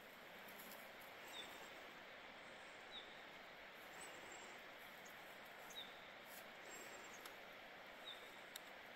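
Faint bush ambience: a steady soft hiss with a short, high chirp repeating every second or two, and a few faint clicks.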